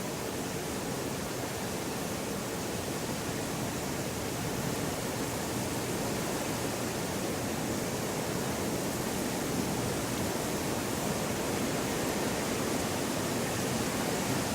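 Hillside outdoor ambience: a steady, even rushing noise with no distinct events, growing slightly louder.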